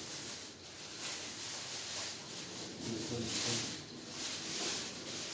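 Thin plastic wrapping crinkling and rustling in uneven swishes as it is pulled off a padded harmonium carry bag.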